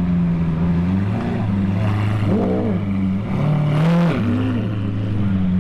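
Lamborghini engine running with a steady low drone, revved briefly twice, a little past two seconds in and again around four seconds in, the pitch rising and falling each time.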